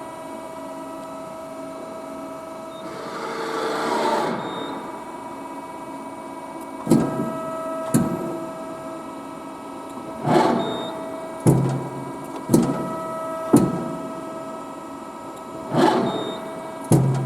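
Amada RGM2 press brake running: a steady machine hum, a swelling whoosh about three seconds in, then a run of sharp clunks, each with a short rising whine, roughly every second as the machine cycles its moving parts.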